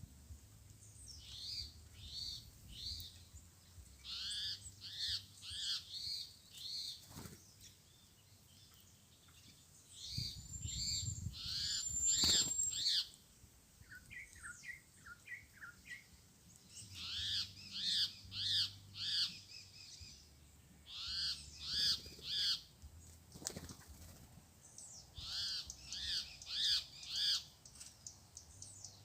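Red-cowled cardinals singing: bouts of quick, repeated whistled notes a few seconds long with short pauses between. A low rumble comes in about ten seconds in and lasts a few seconds.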